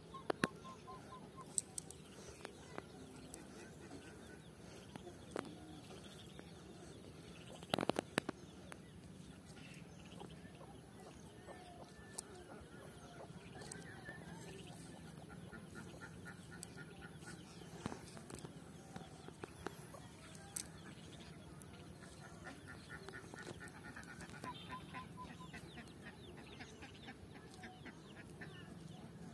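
Quiet outdoor background with birds calling in short repeated runs of notes, now and then. Scattered sharp clicks, and a brief louder crackle about eight seconds in.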